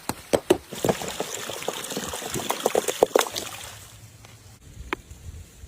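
Stones knocking and clattering in quick, irregular clicks over a rustling hiss, thinning out about three and a half seconds in, with one more knock near the end.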